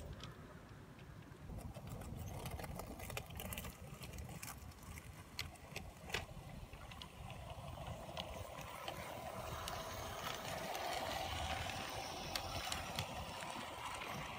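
Small LGB garden-railway locomotive running on its track: scattered clicks from the wheels on the rails, with the electric drive's whine growing louder from about halfway as the train comes close.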